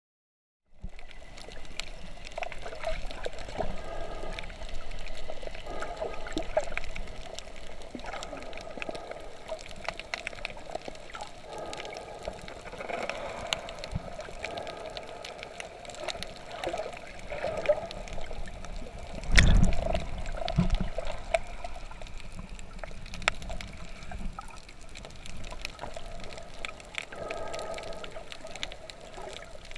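Water sloshing and gurgling, muffled, with a heavy low thump about two-thirds of the way through.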